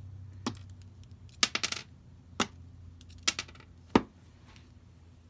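Small metal screws clinking and being set down on a hard surface: a scatter of light metallic clicks and taps, a few with a brief ring, with a duller, louder knock about four seconds in.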